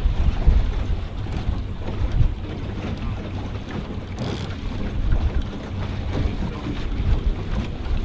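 Boat outboard motor running with a steady low hum while wind buffets the microphone. A brief hiss cuts in about four seconds in.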